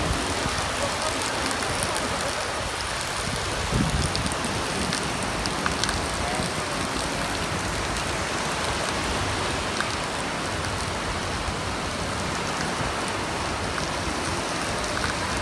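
Small waves breaking and washing up a sandy beach, a steady hiss of surf. About four seconds in there is a brief low bump on the microphone.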